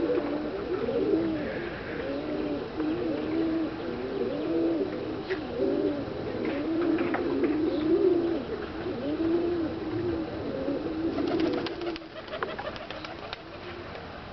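Domestic pigeons cooing, several overlapping coos repeating one after another, dying away about twelve seconds in, when a few light clicks are heard instead.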